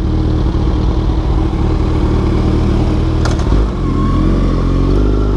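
Kawasaki Z1000's inline-four engine through a full aftermarket exhaust system, running steadily, then pulling up in revs with rising pitch from about four seconds in. A short sharp click comes a little after three seconds.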